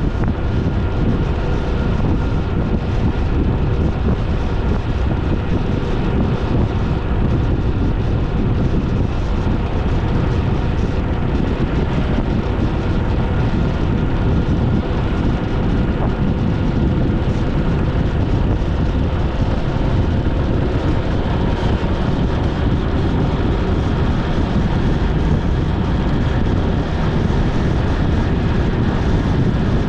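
Motorcycle engine running steadily at cruising speed, with heavy wind and road noise rushing over the camera microphone.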